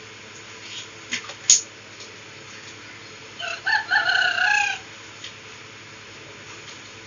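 A rooster crowing once, starting about three and a half seconds in and lasting over a second. Earlier, about a second in, two sharp clicks.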